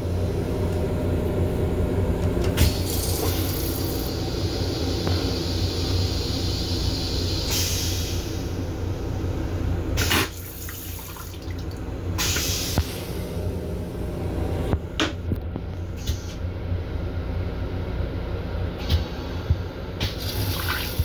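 Restroom toilet on an M7 commuter rail car flushing: water rushes and refills the bowl for about ten seconds, broken by several short hissing rushes. Under it is the steady low hum of the train.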